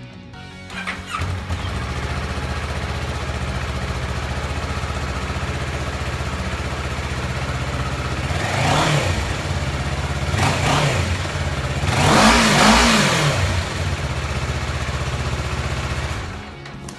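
2015 Kawasaki Ninja 650's parallel-twin engine through its stock exhaust, starting about a second in and then idling steadily. It is revved three times, briefly, with the last rev the longest and loudest, then settles back to idle and cuts off near the end.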